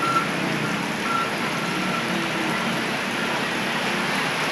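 Heavy downpour: a steady hiss of rain on roofs and on a flooded street, with motorbike engines running as the bikes ride through the floodwater.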